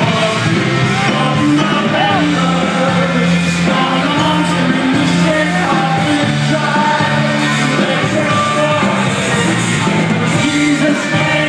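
Live rock band playing with a male lead singer, heard from within the audience.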